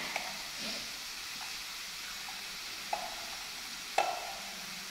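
Potato sticks frying in hot oil in a pan, a steady sizzle, as they are moved about with chopsticks. Two short clicks stand out, about three and four seconds in.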